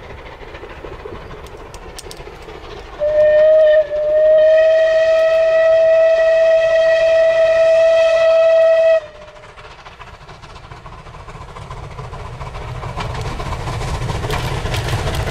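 Train whistle sounding one short toot and then one long, steady blast of about five seconds, over the rumble of a train running on the rails. The rumble grows louder near the end.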